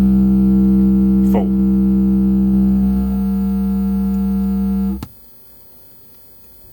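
A steady low bass test tone played through a car stereo with a Kenwood KSC-SW11 underseat subwoofer turned up to full, heard as a constant hum. It cuts off suddenly about five seconds in, leaving only faint background.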